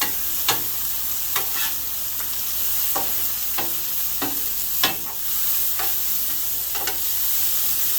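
Diced onions and serrano peppers sizzling in oil on a 22-inch Blackstone flat-top griddle, with a spatula scraping and tapping on the steel cooking surface about once a second as they are stirred.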